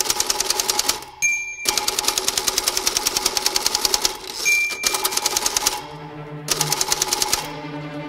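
Typewriter being typed on quickly: rapid, even runs of key strikes with short pauses between them. The margin bell dings twice, about a second in and again near the middle, each time followed by a brief break in the typing.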